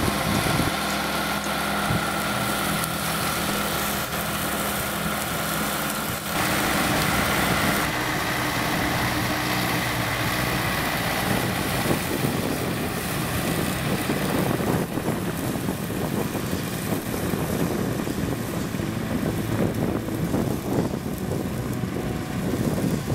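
Tractor engine running with a hydraulic boom mower's cutting head spinning as it mows grass: a steady mechanical hum with a whine over it. The sound changes abruptly about six and eight seconds in.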